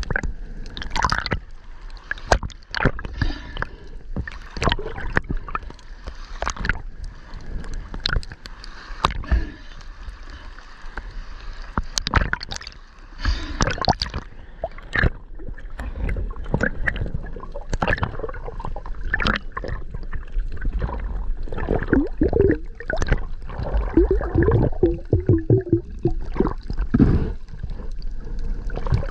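Underwater sound on a spearfishing dive: water gurgling and sloshing against the microphone, with frequent sharp clicks and knocks throughout and a low rumble beneath.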